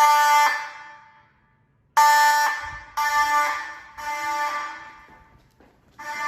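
Simplex fire alarm sounding during a test: pitched tone pulses about one a second, each starting sharply and fading away, in groups of three with a pause between groups, the temporal-three evacuation pattern.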